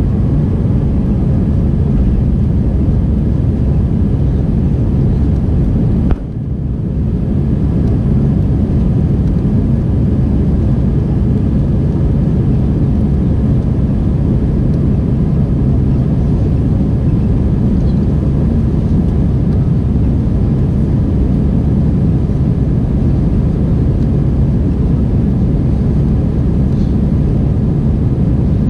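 Cabin noise of an Airbus A319 climbing out after takeoff, heard from a window seat over the wing: a steady, deep jet-engine and airflow rumble. The level dips suddenly and briefly about six seconds in, then comes straight back.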